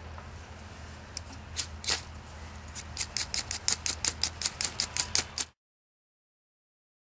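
A striker scraped hard down a flint bar to throw sparks onto fire-tinder shavings. A few single strokes come first, then a quick run of about five strokes a second. It cuts off suddenly.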